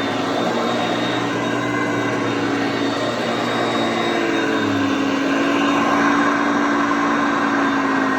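Hoover Concept Two Electronic upright vacuum cleaner running steadily, its motor hum shifting slightly in pitch about halfway through.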